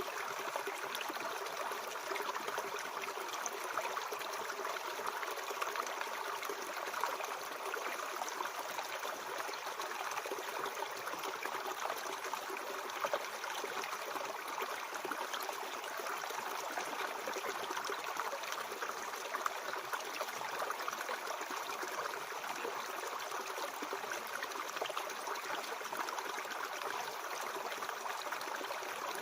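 Mountain stream flowing, a steady even rush of water with no breaks.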